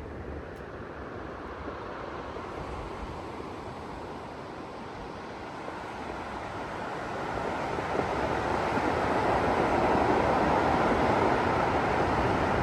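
Steady rushing of water, swelling louder about seven seconds in.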